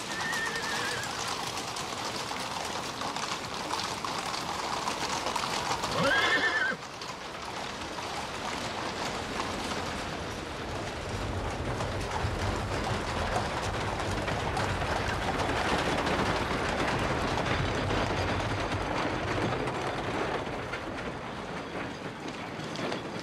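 Horses whinnying, with one loud whinny about six seconds in, over a steady bustle of hooves clattering on cobbles and a crowd moving about.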